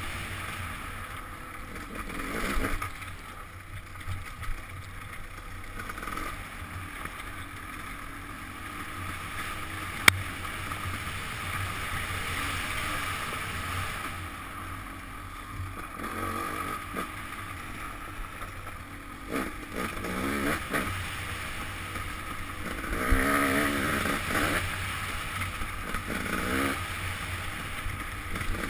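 KTM dirt bike engine, heard muffled through a helmet-mounted GoPro, running on the trail with the throttle worked on and off. It revs up in several rising bursts in the second half, and there is one sharp knock about ten seconds in.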